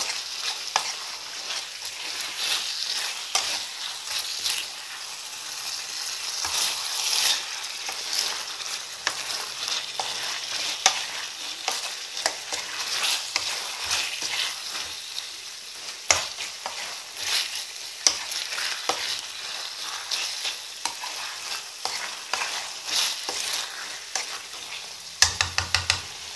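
A spatula stirring and scraping chicken curry in a metal karahi, with a steady sizzle from the thick sauce cooking over the gas flame. The stirring comes as many short irregular scrapes over the sizzle.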